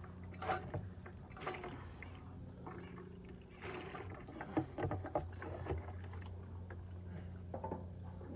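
Diesel dripping slowly into a container, a drip or small splash every second or so, over a steady low hum.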